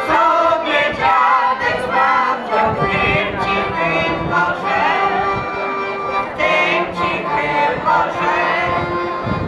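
A folk singing group of women's voices singing a Polish folk song in chorus, with a piano accordion holding steady notes beneath the voices.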